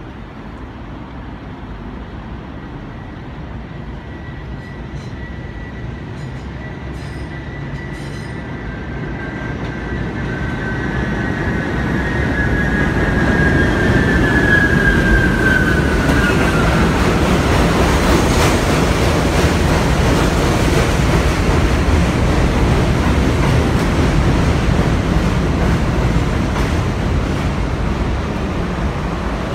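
R32 subway train approaching on the elevated line and running in alongside the platform. Its steel wheels squeal on the curve as a high, thin whine that sinks a little before fading, while the rumble of wheels on rail grows loud and stays loud as the cars pass.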